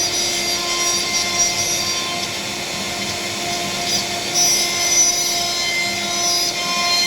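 CNC router spindle running with a steady whine as its bit cuts into a panel.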